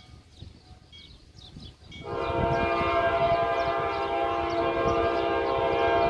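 Locomotive horn sounding one long, steady blast of about four seconds, starting about two seconds in, from a train approaching down the line. Birds chirp faintly before it.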